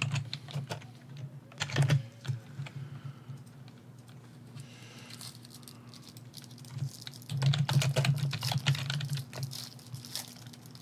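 Rapid clicking and tapping in short bursts: a brief cluster at the start, another about two seconds in, and a longer run from about seven to nine and a half seconds in.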